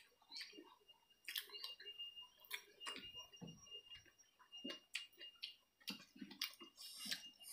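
Close-up eating sounds: irregular wet clicks and smacks of chewing, lips and fingers working rice and chicken curry by hand, over a faint steady high whine.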